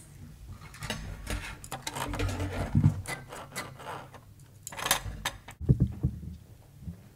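Irregular clicks, knocks and scrapes of cutlery and dishes on a table as people eat, with dull thumps of the table being bumped.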